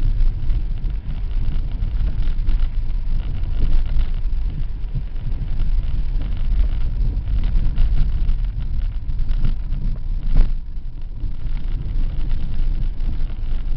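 Inside a 4x4 driving over a wet dirt track: steady low rumble of engine and tyres, with a single sharp knock about ten seconds in.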